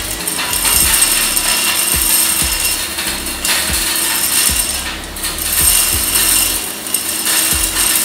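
Wieland VacPro 16 industrial vacuum, driven by three 1.2 kW blowers, running with a steady high rush of air at its aluminium suction tube, while gravel stones are sucked in with irregular sharp clicks and rattles against the tube. The rush dips briefly a couple of times.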